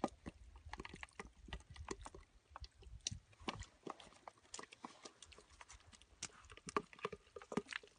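Hands digging and squeezing through wet mud: a faint, irregular stream of small wet squelches, clicks and slaps.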